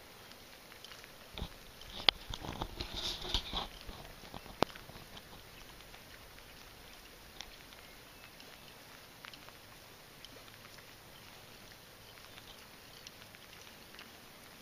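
A few sharp clicks and a short run of knocks and rustles about two to four seconds in, then only faint scattered ticks over a quiet steady background.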